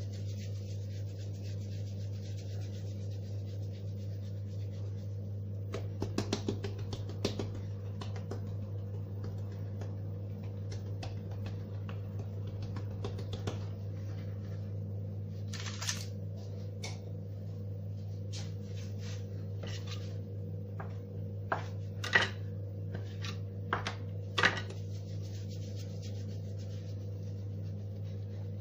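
A steady low hum runs throughout, with scattered clicks, knocks and rubbing from handling burger-bun dough on a work surface. The sharpest knocks come about 22 and 24 seconds in.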